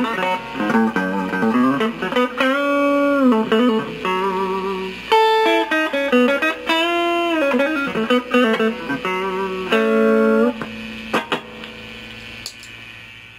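Clean electric guitar, an ES-335-style semi-hollow played on its humbuckers through a Kokko Mini Compressor pedal. It plays single-note lead phrases with string bends and vibrato, then lands on a final note about ten and a half seconds in that is left to ring and fades away.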